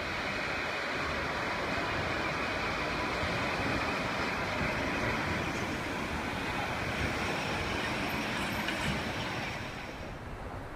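Sapporo 3300-type streetcar running past on street track: a steady rumble of wheels on rails and running gear. It dies down about ten seconds in.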